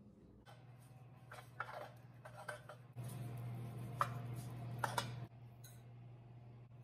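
A pastry brush dabbing butter into the cups of a metal muffin pan makes light scrapes and clicks, with two sharper ticks against the tin, over a low steady hum that stops about five seconds in.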